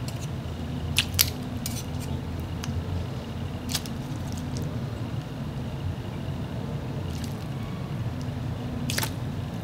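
A few sharp, wet clicks and smacks from an Asian bullfrog snapping at live worms: two close together about a second in, one near four seconds and one near the end, over a steady low background hum.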